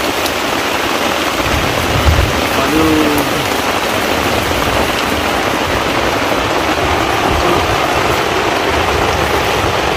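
Heavy rain pouring steadily, a dense even hiss, with a brief low thump about two seconds in.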